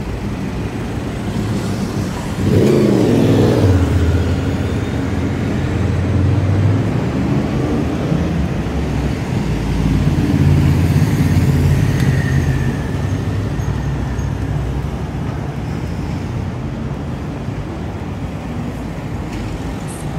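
Road traffic on a city street: a motor vehicle's engine comes in loud about two and a half seconds in and runs on. There is a brief high squeal near the middle, and the traffic noise eases off towards the end.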